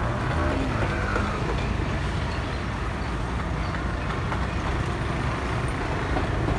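Steady low rumble of road traffic, with trucks and cars passing.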